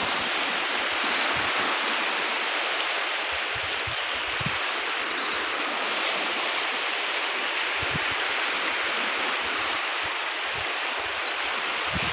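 Small sea waves breaking and washing over a shallow beach: a steady rushing of surf, with a few short low thumps about a third of the way in, two-thirds of the way in and near the end.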